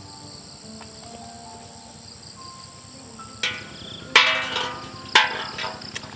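Steady high insect buzzing, as of crickets. From about halfway in, three sharp ringing knocks come roughly a second apart; the second is the loudest.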